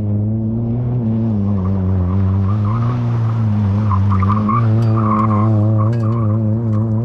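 Rally car engine held at steady revs, its note wavering, as the car slides sideways around a dirt circle; about four seconds in it passes close and the spinning tyres spray loose dirt and gravel, with a few stones clicking.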